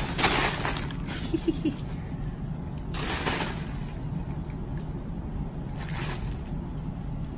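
Plastic air-pillow packing film crinkling and rustling under kittens' paws, in three short bursts: at the start, about three seconds in, and about six seconds in, over a steady low hum.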